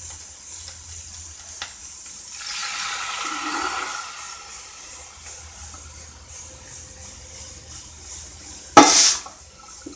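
Water poured from a steel bowl into a pan of hot ghee with fried onions and cumin, splashing and sizzling, swelling about two to four seconds in over a faint steady hiss. A short loud burst of noise comes near the end.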